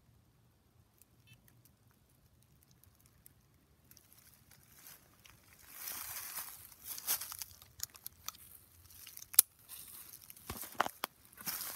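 Footsteps crunching and rustling through dry leaf litter on a forest floor, starting about four seconds in after a near-quiet stretch, with uneven crackles and one sharp snap a little past the middle.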